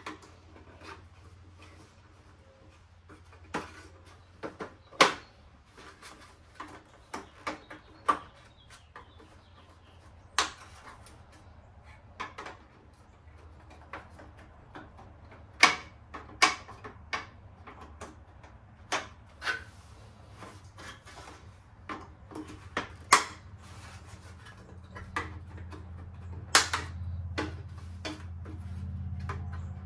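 Plastic tabs and clips of a Ram truck's factory grille insert snapping and clicking as they are pried apart with a flat screwdriver: a string of sharp, irregular clicks, a few of them loud. Under them runs a low hum that grows louder near the end.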